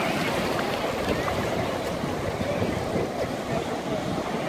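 Shallow seawater surging and washing over a flat rock shelf, a steady rush of surf, with wind on the microphone.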